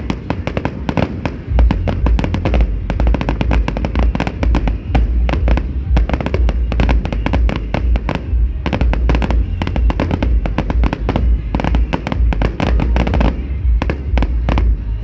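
Fireworks display going off continuously: a rapid, dense string of crackles and bangs, with a heavy low rumble underneath from about a second and a half in. Music plays alongside.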